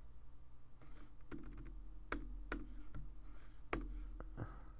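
Computer keyboard keystrokes typing, about seven short clicks spaced unevenly, over a faint steady low hum.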